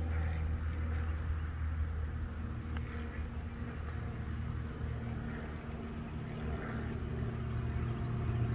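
Steady low hum of an engine running, growing a little louder near the end, with a faint click about three seconds in.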